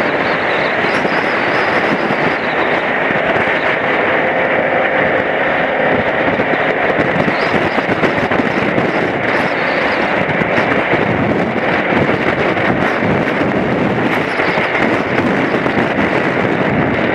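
A BMW F700GS motorcycle under way, heard from a camera mounted on the bike: a loud, steady rush of wind and road noise with the engine mixed in.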